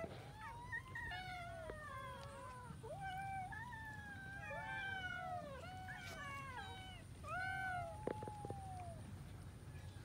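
Several cats meowing over one another, many short arching meows overlapping almost without a break. A few light knocks about eight seconds in.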